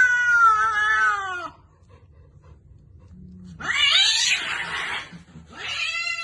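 Cat meowing in three long drawn-out calls, each falling in pitch; the middle call is rougher and the loudest.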